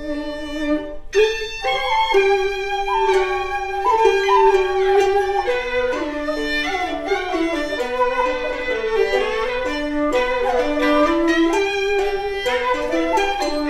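Gaohu and erhu, Chinese two-string bowed fiddles, playing a Cantonese-music melody in unison, with frequent slides between notes.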